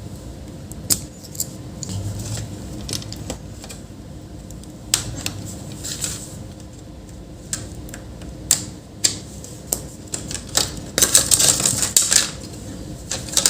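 Irregular small clicks and taps of hard plastic and metal as a laptop is taken apart with hand tools, with a quicker flurry of clicking about eleven seconds in.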